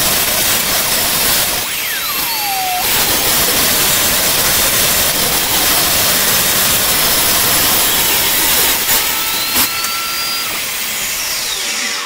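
Table saw running and ripping along the edge of a thick block of apitong hardwood: a steady high whine with the cutting noise, and a short sharp knock late in the cut. The noise drops away as the cut finishes.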